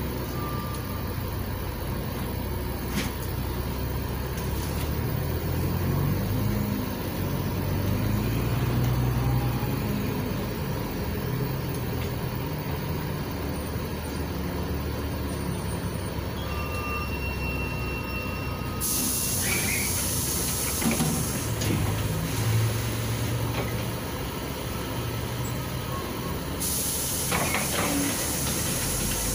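Inside a LiAZ 5292.67 city bus under way, its YaMZ-53624 compressed-natural-gas engine running with a steady low drone. Sharp bursts of air hiss come from the bus's pneumatic system: a short one about two-thirds of the way through, and a longer one near the end as the bus comes to a stop.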